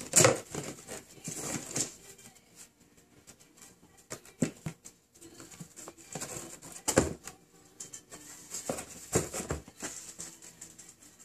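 Cats scrabbling in and on a small cardboard box: irregular scratches, rustles and knocks of paws and claws on cardboard. The loudest bursts come right at the start and about seven seconds in.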